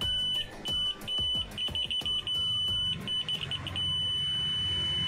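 Electronic buzzer giving a steady high-pitched tone in irregular short beeps that becomes one long continuous tone near the end, cutting in and out as a wire lead touches the contact on the car bulb's base and makes and breaks the circuit.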